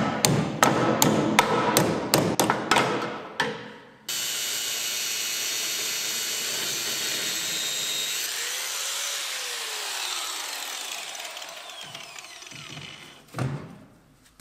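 Rapid, hard blows, several a second, working a stuck part off a shaft with a puller. About four seconds in they stop abruptly and give way to a steady whirring hiss that slowly fades, its tones falling in pitch like a tool winding down. A couple of knocks come near the end.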